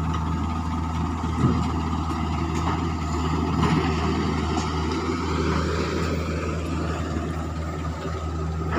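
Heavy vehicle diesel engine running steadily with a low, even hum, and a few brief knocks over it.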